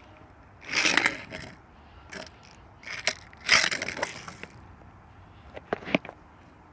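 Small toy train being pushed along its toy track in several short scraping runs, with a few sharp clicks in between.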